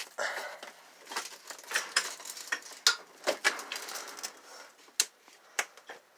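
Irregular light clicks and clattering of hard objects being handled and knocked together, with a few sharper knocks.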